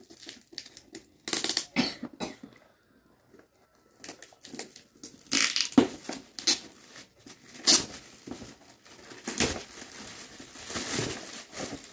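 Gift wrapping and packaging being torn open and crumpled by hand, in irregular bursts of rustling with a quieter pause about three seconds in.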